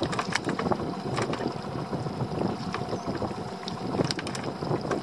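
Sea water lapping and slapping against the hull of a small open boat, with wind on the microphone and a few light clicks and knocks scattered through.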